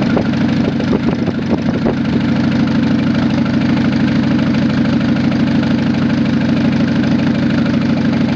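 GAZ M21 four-cylinder petrol engine idling steadily, with a few sharp clicks in the first couple of seconds.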